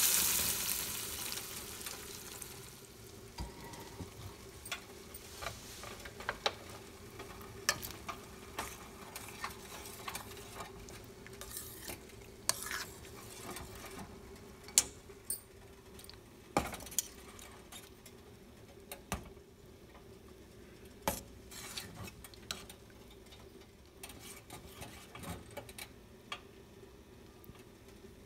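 Spinach dal sizzling in hot tempering oil in a stainless steel pan, loud at first and dying away over the first few seconds, then a steel spoon stirring the dal with scattered clinks and scrapes against the pan.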